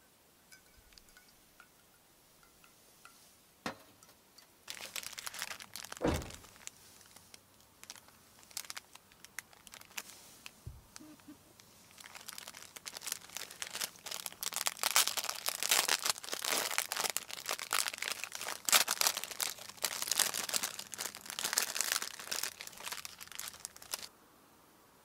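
Crinkling and rustling of a clear plastic food bag as it is handled: a short burst about five seconds in, then a long, dense stretch of crinkling through the second half. A single soft thump comes about six seconds in.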